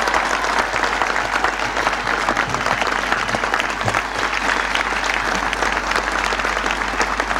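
Large crowd applauding steadily, a dense patter of many hands clapping.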